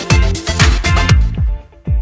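Background electronic dance music with a steady kick drum about twice a second. The busy upper layer drops out a little over a second in, leaving the kick and short chords.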